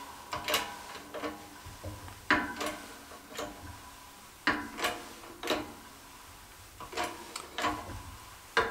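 Shop press forcing a bicycle tube down into a 3D printed bending die: a string of sharp clicks and knocks, roughly one a second, as the press is worked and the tube bends.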